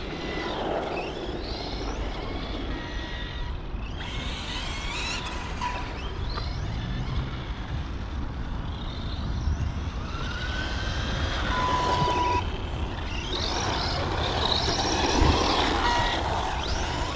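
Electric motor of an Arrma Vorteks radio-controlled stadium truck driven round a lap, whining up and down in pitch as it accelerates and slows, over a steady low rumble.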